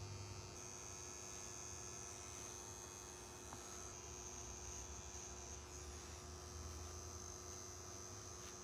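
Rotary pen-style tattoo machine with a cartridge needle, set to 8, running steadily as it lines skin: a faint, even hum with a thin high whine that sets in about half a second in.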